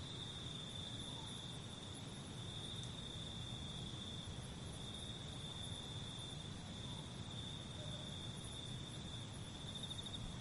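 Crickets chirping in one steady, unbroken high trill over faint low background noise.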